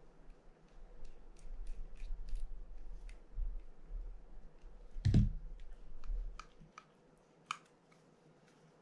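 Small parts and tools of a Penn Spinfisher 750SS spinning reel clicking and tapping during disassembly, with one louder knock about five seconds in and a few sharp ticks after it.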